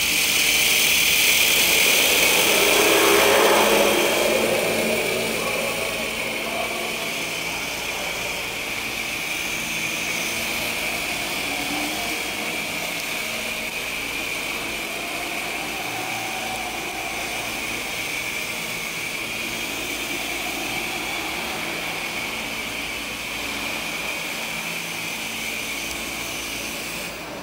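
Toy coaxial RC electric helicopter in flight, its two main motors and tail motor driving the rotors with a steady high whine. Loudest in the first four seconds, then a little fainter and even.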